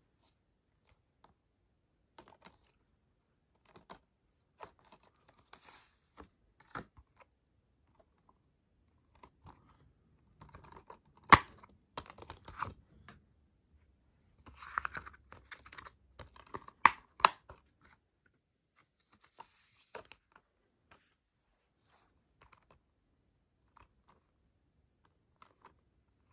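Plastic Blu-ray cases and cardboard slipcovers being handled: scattered soft rustles and taps, with sharp plastic snaps about eleven seconds in and twice close together near seventeen seconds as a Blu-ray case is opened and snapped shut.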